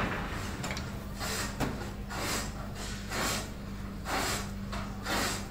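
Workshop machinery motor humming steadily, with a series of short rasping, scraping strokes about once or twice a second as wooden cue strips are worked by hand.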